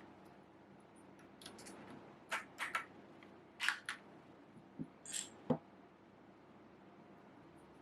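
Scattered small plastic clicks and taps from handling a mechanical keyboard and its PBT keycaps, some in quick pairs, with two dull knocks and a brief rustle about five seconds in.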